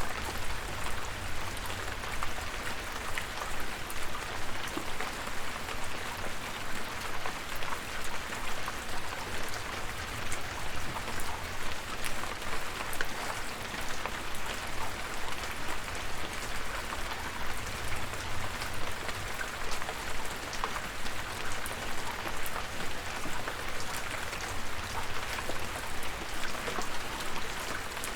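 Steady rain with many individual drops ticking and pattering, over a low rumble.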